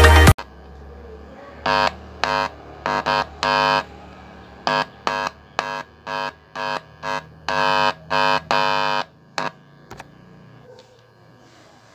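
Speakers on a homemade TDA7297 amplifier board giving a loud electrical buzz that cuts in and out about fourteen times at uneven intervals over a low hum, as the loose input plug is handled: hum picked up at the amplifier's input.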